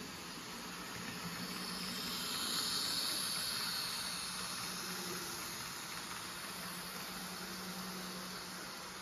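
Z-gauge model train, a small electric locomotive hauling a long string of container wagons, running along the track with a faint high hiss of motor and wheels on rail. It is loudest about three seconds in as the locomotive passes closest, then fades as the wagons roll by. A low steady hum lies underneath.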